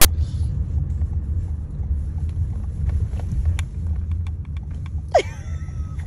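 Steady low rumble inside a car's cabin, with a few faint light ticks. About five seconds in comes a short, falling vocal sound from a toddler.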